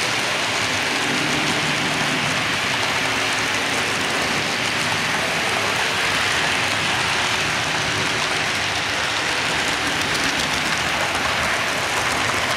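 Model freight train rolling steadily past on the layout: a continuous rushing noise of many metal wheels running on the model track.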